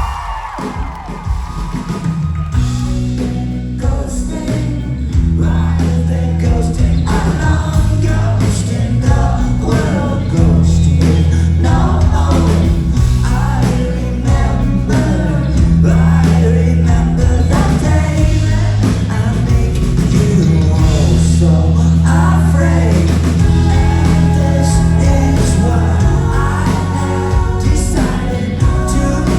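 Live rock band starting a song, with the full band and its heavy bass coming in about two seconds in, then playing on with singing.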